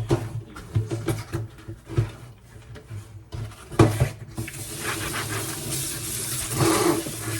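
Light clicks and knocks of things being handled, then a tap turned on about four seconds in and water running steadily into a sink.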